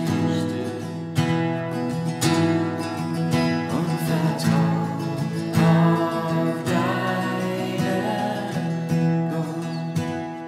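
Acoustic guitar strumming chords in a slow, even rhythm, with a strong stroke about once a second, accompanying a worship song.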